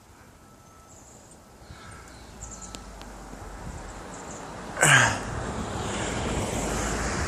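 Wind rumbling on a phone's microphone, building over the second half, with one short, loud burst of breath from the person filming about five seconds in.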